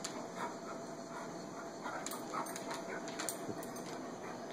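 Basset hound begging for food with a few short, soft whines, then its claws clicking and scratching on a hardwood floor several times about two to four seconds in.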